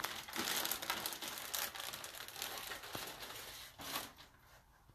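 Plastic bags crinkling and rustling as they are handled, busiest in the first two seconds or so and thinning out, with one last short rustle about four seconds in.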